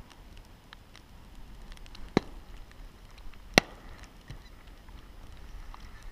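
Two sharp bangs about a second and a half apart, the second much louder, over a faint scatter of small clicks.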